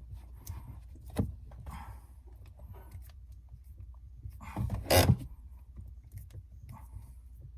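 Shift knob being twisted off a Ford Mustang GT350R's manual shifter: small scattered clicks and creaks of handling, a sharp knock about a second in and a louder knock about five seconds in.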